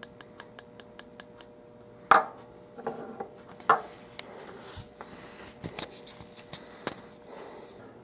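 Handling noise from a broken-off plastic Ford turn signal stalk: a quick, even run of light clicks that fades out in the first second or so, then a sharp knock about two seconds in and a smaller one near four seconds as the stalk is laid on a wooden desk, with soft rustling after.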